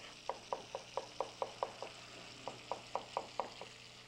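Chef's knife chopping a shallot on a cutting board: quick, even knocks of the blade on the board, about four or five a second, in two runs with a short pause about two seconds in.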